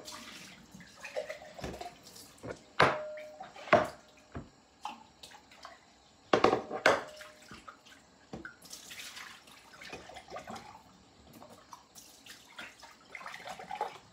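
A glass jar of gherkins being handled and turned over: brine sloshing and dripping inside, with several sharp clicks and knocks of the glass and lid.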